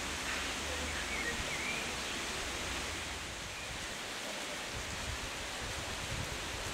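Steady outdoor hiss at a railway station, with a few faint high chirps about a second in.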